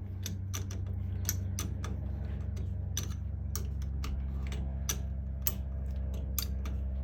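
Irregular sharp metal clicks, two or three a second, as the bolts of a steering wheel puller are tightened with a hand tool, over a steady low hum.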